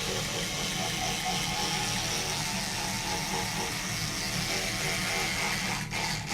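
Electric toothbrush running with a steady buzz, dipping briefly twice near the end.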